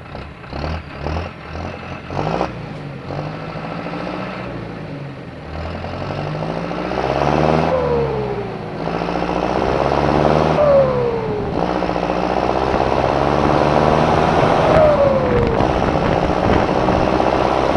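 John Deere 6420 S tractor's turbo diesel engine running and growing louder, with uneven revving early on. The turbocharger whistles three times, each whistle falling in pitch as the revs drop.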